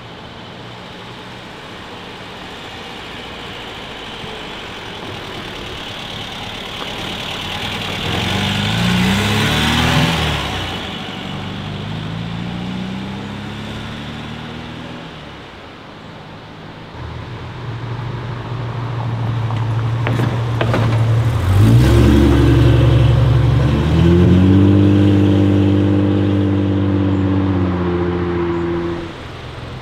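Ford Fiesta Mk2 engine pulling away and accelerating through the gears: its pitch rises, breaks at a gear change about ten seconds in, rises again, then fades as it drives off. Another car's engine then comes up louder, running steadily and revving higher around the last few seconds before cutting off.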